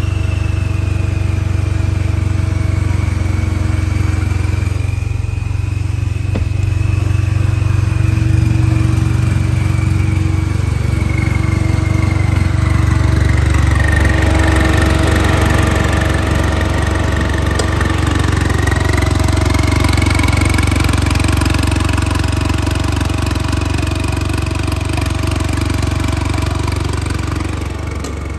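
2013 Chevy Cruze 1.4-litre turbocharged four-cylinder idling with a straight pipe and no exhaust after the turbo: a steady deep engine drone with a high turbo whistle over it. The whistle slides down in pitch over the first few seconds, dips lower around the middle, then rises a little again.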